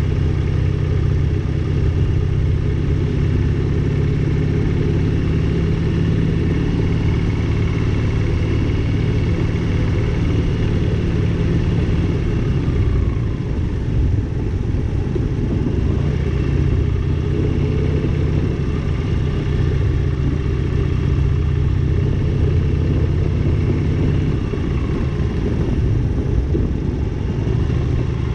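Motorcycle engine running steadily while riding, its note dropping and breaking briefly about halfway through before picking up again.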